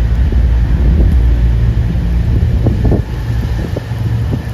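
East Midlands Railway Class 170 Turbostar diesel multiple unit pulling away under power, its underfloor diesel engines running with a deep steady drone and sending up exhaust smoke. Wind buffets the microphone.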